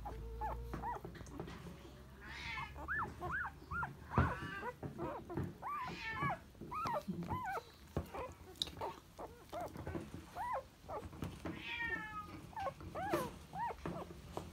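Newborn cockapoo puppies squeaking and mewling, a run of short high cries that rise and fall in pitch, several a second, with a sharp knock about four seconds in.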